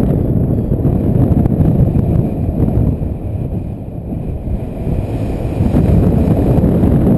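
Strong wind buffeting the microphone: a loud, low rumble that eases a little about halfway through, then builds again.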